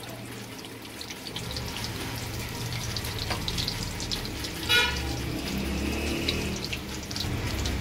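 Breaded chicken drumsticks deep-frying slowly in hot oil on a low flame, with a steady sizzle and small crackles and pops. About two thirds of the way in, the slotted spoon gives a short, harsh metal scrape against the pan.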